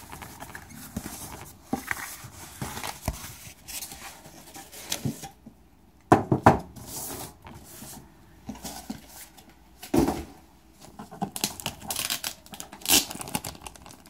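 Cardboard box and plastic shrink-wrap being handled and opened: rustling, scraping and crinkling, with a few sharper knocks about six and ten seconds in.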